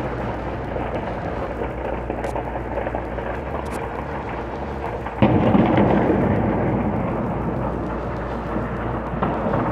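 Low, continuous rumble, then a sudden heavier boom about five seconds in that rolls on and slowly fades like thunder: a distant explosion.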